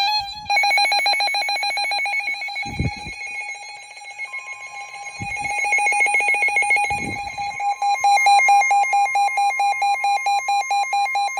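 NOAA weather radios sounding a warning alert: a rapidly pulsing electronic alarm beep. About four seconds in, a steady 1050 Hz warning alarm tone joins it and carries on, signalling the start of a Special Marine Warning broadcast.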